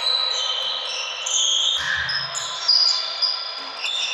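Volleyball players' sneakers squeaking on the sports-hall floor, many short high squeaks one after another, with a dull thump about two seconds in and a sharp loud hit a little under three seconds in.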